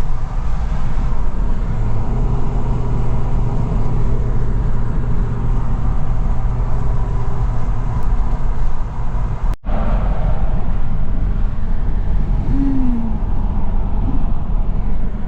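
Steady engine and road noise heard from inside a moving car, a low rumble with a hum, cut off for a split second a little past the middle.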